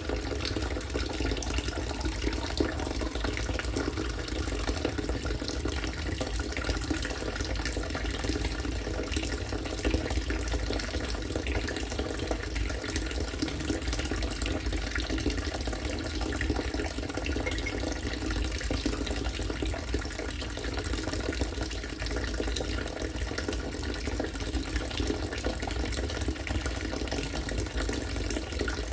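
Collected rainwater falling steadily into a catchment container, a continuous pouring and splashing that keeps an even level throughout.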